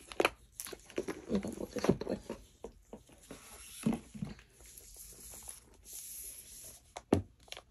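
Cardboard and paper packaging handled and lifted away: scattered rustles and light taps, with a few short vocal sounds in between.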